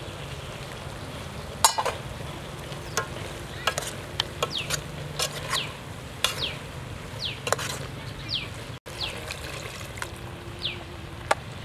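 A metal spoon clinking and scraping against an aluminium cooking pot as a pot of vegetable soup is stirred, a string of sharp clinks, the loudest about a second and a half in, over a steady low sizzle from the simmering pot.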